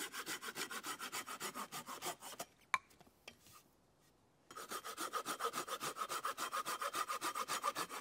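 Curved-blade pruning saw cutting through a wooden pole in quick, even strokes, about five a second. The sawing stops for about two seconds partway through, broken by a single knock, then starts again.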